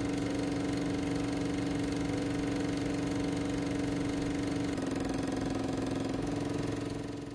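Closing music: a sustained held chord that steps down slightly in pitch about five seconds in, returns a second and a half later, and begins to fade out near the end.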